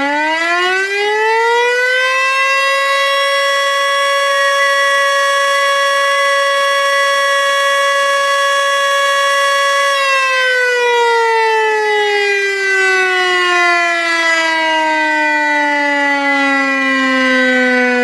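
Tornado warning siren finishing its wind-up in the first couple of seconds, then holding a steady loud wail until about halfway through, then slowly winding down in pitch without stopping. A thin steady high tone runs alongside the whole time.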